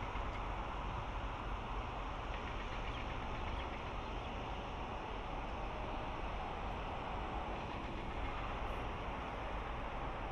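Steady road noise of a car driving at highway speed: an even rush of tyres and wind with no rise or fall.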